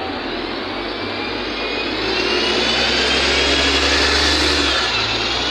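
NefAZ 5299 city bus, rear-mounted Cummins ISBe six-cylinder diesel with Voith automatic gearbox, pulling away from a stop close by. The engine grows louder about two seconds in under a rising whine, and the pitch dips briefly near the end before climbing again.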